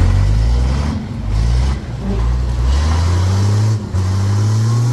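Mercedes-Benz Unimog truck's diesel engine revving hard under load as the truck works nose-down through a mud hole. Its pitch climbs steadily, with brief drops in revs about a second in, around two seconds and just before the end.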